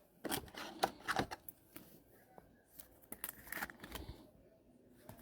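Trading cards being flipped and slid over one another by hand: faint rustles and light clicks in short bursts, about a second in and again around three to four seconds in.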